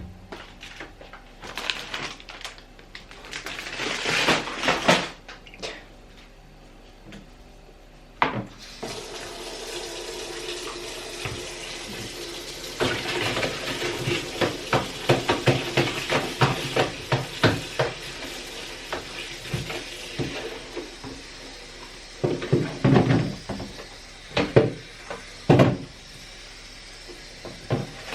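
Pantry storage bins clattering and knocking in a kitchen sink, then a tap turned on about a third of the way in, running water as the bins are washed with repeated knocks against the sink.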